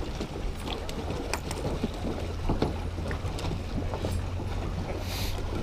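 Steady low wind rumble on the microphone, with a few faint knocks.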